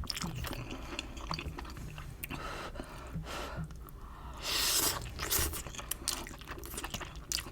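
A person chewing food close to the microphone: wet mouth clicks and some crunching, with a short louder rush of breathy noise about two-thirds of the way in.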